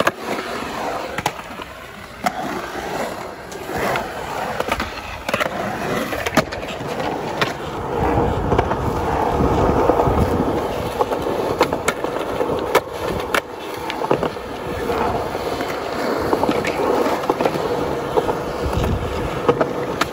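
Skateboard wheels rolling on concrete with a steady rumble, broken again and again by sharp clacks of the board popping and landing during a line of tricks. The rolling is loudest about eight to ten seconds in.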